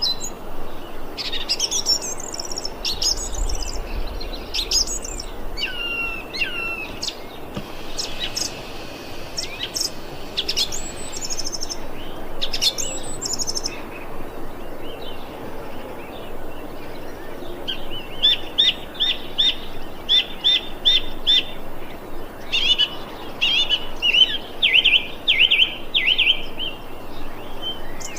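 Thrush singing a run of varied whistled phrases; in the second half it delivers phrases of quick repeated notes.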